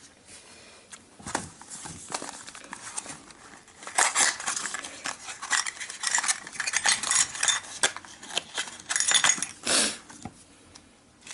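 Small metal objects clinking and rattling on a tabletop as a small stainless-steel dish and a container are handled, in a dense run of clicks from about four seconds in. There is a brief louder rush of noise near the end.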